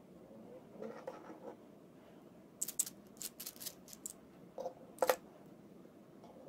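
Faint handling sounds of a hand-worked gripper holding a small cylinder: light scraping about a second in, a quick run of sharp clicks, then two knocks around five seconds in, the second the loudest, as the cylinder is let go onto the table.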